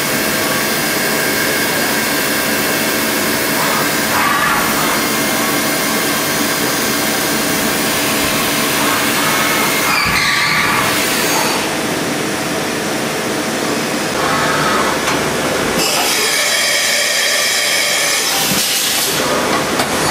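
Mazak VTC 20 BM Plus CNC vertical machining centre running, its spindle head traversing along the axes: a steady mechanical whine of several tones, shifting in pitch about ten seconds in and changing again for a few seconds near the end.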